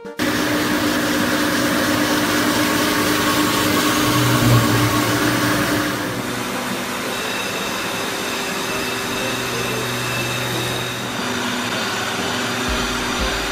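Waldrich Coburg portal grinding machine at work, its grinding head running steadily against the workpiece with coolant spraying: a loud, even hiss with a faint whine. The sound shifts and drops a little about six seconds in, and a low rumble comes in near the end.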